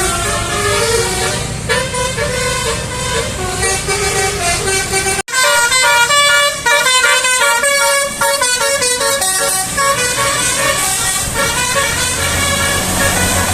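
Bus basuri telolet horn playing a stepped multi-note melody over the low rumble of the bus's engine. About five seconds in it cuts off suddenly, and another horn melody follows with quicker notes.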